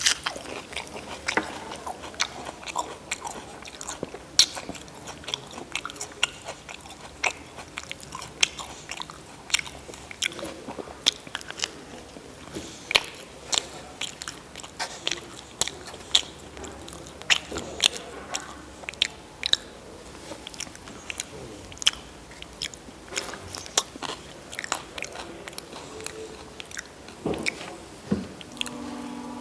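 A person biting into and chewing crunchy food, with irregular crisp crunches throughout.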